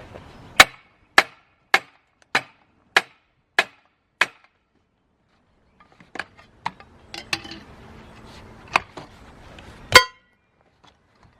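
Hammer blows ringing on metal, most likely on a seized, corroded bolt: seven even strikes about half a second apart, then a pause with light metallic clinks, then two more blows near the end, the last the loudest.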